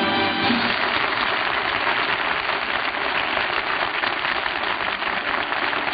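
A band's last held chord cuts off about half a second in, and an audience applauds steadily through the rest.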